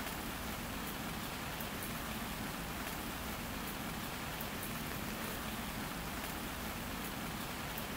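Steady rainfall: an even hiss of falling rain with a few faint drop ticks.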